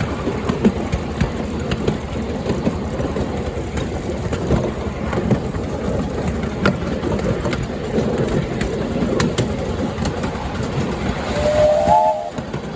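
Miniature railway train running along the track with a steady rumble and clatter and scattered sharp clicks. Near the end there is a short whistle from the locomotive.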